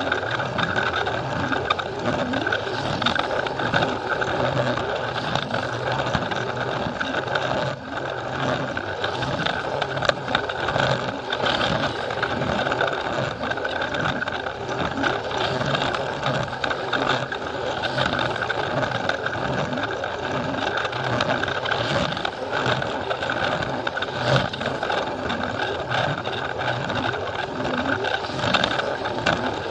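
Plarail battery-powered toy train running on plastic track: the steady whir of its small motor and gears, with scattered clicks and rattling from the wheels on the track.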